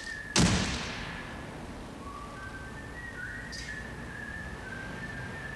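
A man whistling a slow tune of held notes. About half a second in, a loud bang as the glass entrance door swings shut, ringing briefly.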